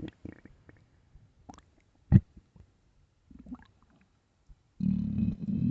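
Empty stomach growling with hunger: scattered small gurgles and one sharp pop about two seconds in, then a long low rumble that begins near the end.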